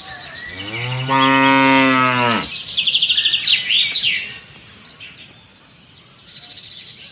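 A cow moos once, a long low call that swells in and cuts off about two and a half seconds in, over birds chirping and twittering, with a quick run of rapid chirps around three to four seconds in.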